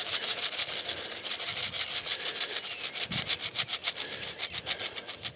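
Bird seed being shaken out of a container onto the ground, a fast, even rattling of about seven or eight shakes a second.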